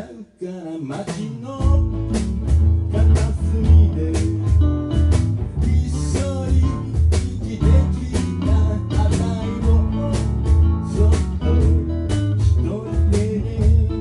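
Live acoustic blues band: several guitars picking and strumming a shuffling blues groove. The low end fills in about a second and a half in, then the rhythm pulses steadily.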